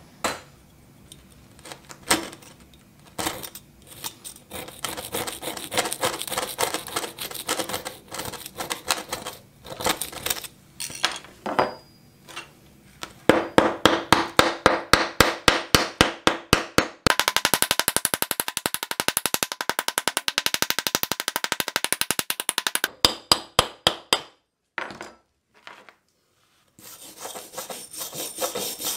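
Rusty steel axe head scraping and clicking against a gritty, rust-covered work surface, then a long run of quick, regular scraping strokes that speeds up into a dense rapid rhythm. After a brief pause near the end, a wire brush starts scrubbing rust off the axe head.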